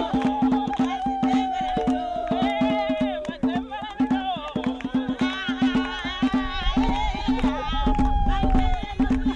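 Background music: quick hand percussion over a steady drone, with a melody line that glides slowly downward twice.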